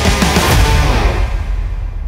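Backing music: a few drum hits, then a held final chord that begins to fade near the end.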